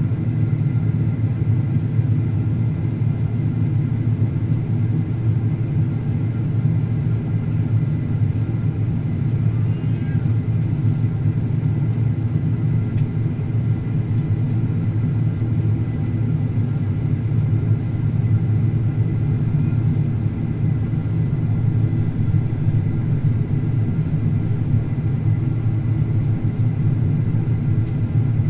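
Steady cabin noise of a Boeing 767-400ER airliner on final approach: engine and airflow rumble, with a faint steady high whine above it.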